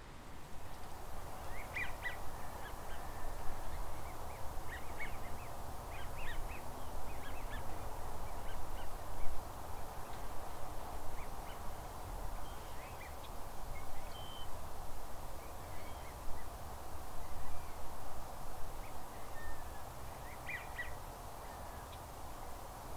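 Distant geese and ducks calling: short high yelps and whistles in scattered clusters over a steady background hiss.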